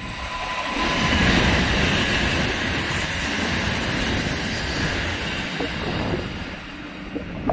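N700-series Shinkansen passing through the station without stopping at about 185 km/h, slowed for the tight station curve. A rush of air and rolling wheels swells about a second in, holds steady, and eases off near the end.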